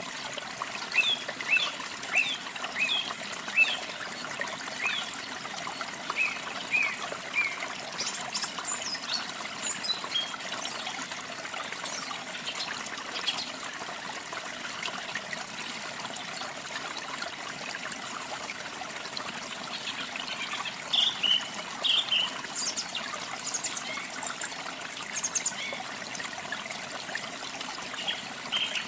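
Steady trickling, splashing water, with small songbirds chirping over it: a quick run of short chirps in the first several seconds, scattered higher notes after that, and a few louder chirps past the middle and near the end.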